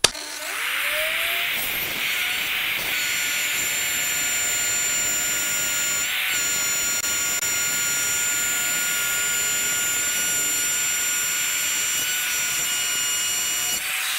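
Electric router spinning up with a rising whine, then running steadily at high speed while its bit cuts a dado in plywood, with a brief dip about six seconds in; near the end it is switched off and winds down.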